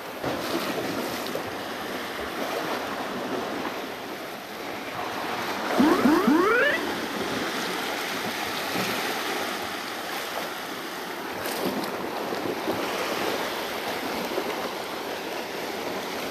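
Small waves washing and surging over a rock shelf at the water's edge, with some wind on the microphone. About six seconds in, a brief sound rising quickly in pitch stands out above the wash.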